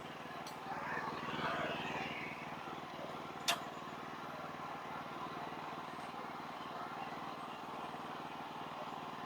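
Sawmill engine running steadily at a low, even drone, with a single sharp click about three and a half seconds in.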